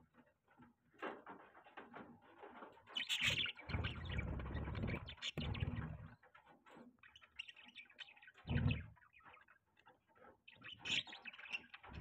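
Budgerigar chicks giving rapid, raspy begging chirps in several bouts as the hen feeds them beak to beak, loudest about three to six seconds in. Low dull bumping comes with the loudest bout and again once later.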